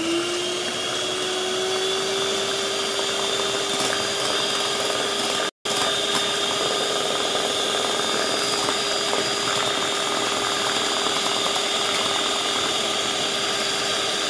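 Electric hand mixer running at one steady speed, its beaters whisking eggs and sugar in a bowl, with a steady motor whine. The sound breaks off for a moment about five and a half seconds in.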